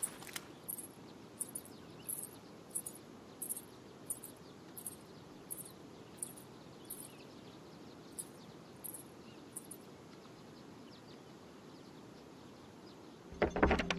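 A cricket chirping at an even pace, about three chirps every two seconds, over a low outdoor hiss with faint bird chirps. The cricket stops about ten seconds in, and a short knock comes near the end.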